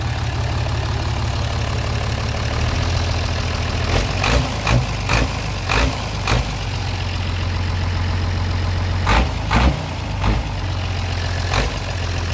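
Bedford truck's diesel engine idling steadily. A few short sharp knocks stand out over it in the middle of the stretch and once more near the end.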